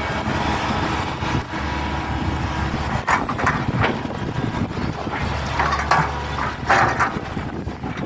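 Hitachi hydraulic excavator's diesel engine running steadily under work, with several short, harsh noises from the machine's digging or chopping about three, four, six and seven seconds in.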